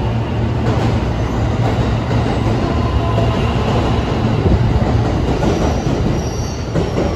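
JR West commuter electric train departing, its cars rolling past close by on the rails with a steady low hum and rumble. Near the end, as the last car passes, a few brief high-pitched squeals come in.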